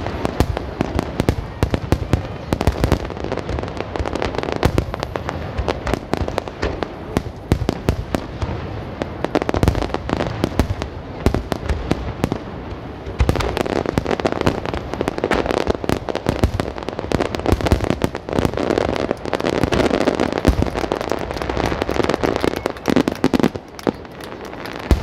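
Fireworks bursting in rapid succession, a dense, continuous barrage of bangs and crackles with deep rumble underneath.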